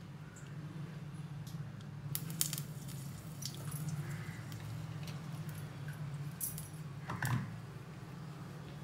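Cooking oil poured from a bottle into a stainless steel kadai at the start, followed by a few light clicks and knocks, the loudest about two seconds in and another just after seven seconds. A steady low hum runs underneath throughout.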